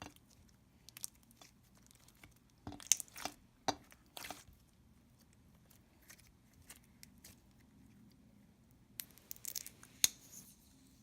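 Slime being squished and stretched by hand, giving sticky crackles and pops in two short clusters, about three seconds in and again near the end.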